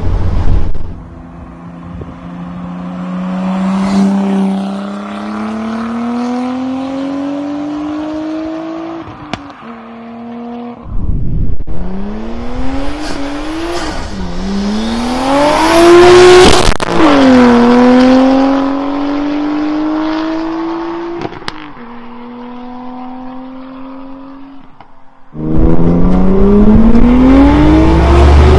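RB20 straight-six in a Datsun Z with a straight-through exhaust, revving hard under acceleration. The note climbs in pitch, drops at each gear change and climbs again, in several stretches, loudest near the middle and again near the end.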